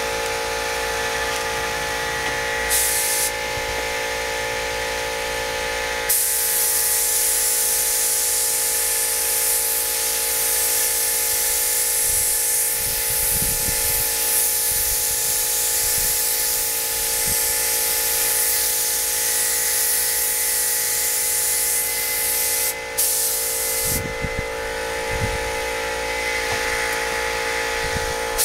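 A spray gun hisses as it lays a coat of clear onto a motorcycle fuel tank: a short burst about 3 s in, then a long continuous pass from about 6 s to about 24 s, easing off after that. Under it a motor whines steadily, the air supply that feeds the gun.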